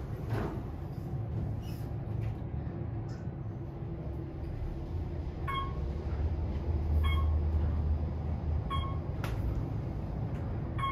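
Passenger elevator car travelling down with a steady low rumble that swells briefly past the middle. A short electronic beep sounds four times, evenly spaced about every second and a half, from about halfway in, typical of an elevator's floor-passing chime.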